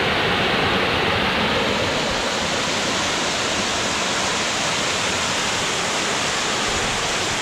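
Steady rush of cascading river water, an even, unbroken hiss of a waterfall and rapids close to the microphone.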